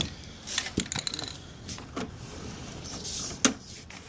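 A series of light, irregular clicks and knocks from equipment being handled, with a sharp knock right at the start and another about three and a half seconds in.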